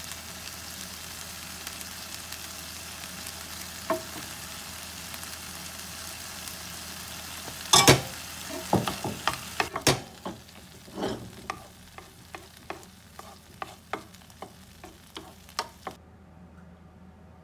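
Chopped onions in sauce sizzling in a frying pan, then a wooden spatula knocking and scraping against the pan as the mixture is stirred, about two knocks a second, from about eight seconds in. The sizzle fades as the stirring goes on, and the sound drops away near the end.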